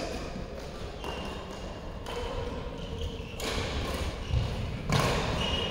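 Badminton play: short shoe squeaks on the court and thuds of footwork, with sharp hits of rackets on the shuttlecock. The loudest hit comes about five seconds in.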